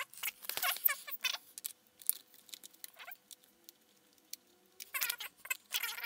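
Scratchy clicks and rustles of fingers handling the open battery bay of a white polycarbonate MacBook, in bursts near the start and again about five seconds in, with a quiet stretch in between.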